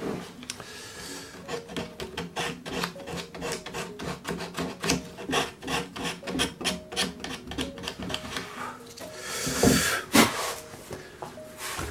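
Sandpaper rubbed by hand over carved wood, in quick back-and-forth strokes of about three or four a second. This is sanding the carved leaves of a frame ahead of the finish coat. About ten seconds in there is a louder burst of rubbing.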